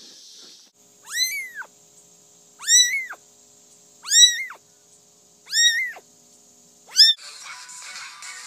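A cat meowing five times, about a second and a half apart. Each meow is high-pitched and about half a second long, rising and then falling in pitch. Music starts near the end.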